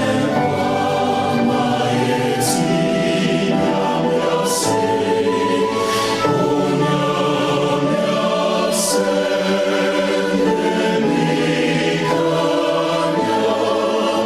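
Choir singing a slow gospel hymn in long held chords, with the singers' crisp 's' sounds cutting through a few times.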